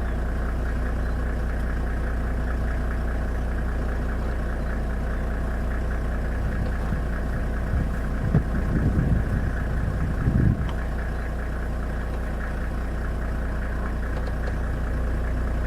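Vehicle engine idling steadily, with a louder, uneven low rumble over a couple of seconds about eight seconds in.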